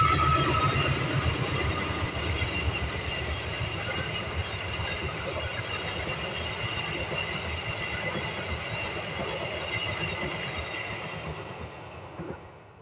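Passenger train coaches running past on the track: a steady rumble of wheels on rail with a thin high ringing tone over it, slowly fading and dying away near the end as the last coach goes by.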